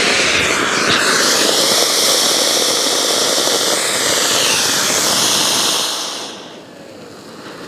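Flower pot (anar) ground fountain firework spraying sparks with a loud steady hiss, which dies away about six seconds in.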